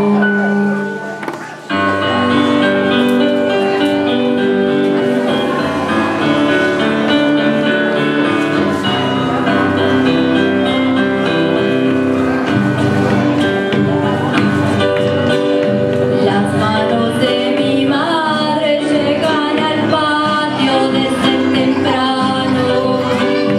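Live song with a young woman singing, accompanied by acoustic guitar and electronic keyboard. The music dips briefly about a second in, then comes back in full. The sung melody is plainest in the second half.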